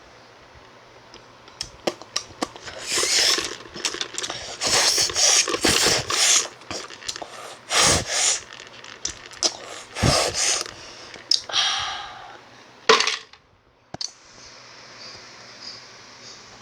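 Eating noises close to the microphone: a long, irregular run of loud clicks, smacks and short noisy mouth sounds, ending a second or so before a brief hush.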